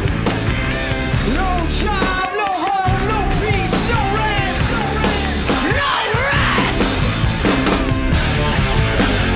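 Rock music with a singing voice over a steady bass.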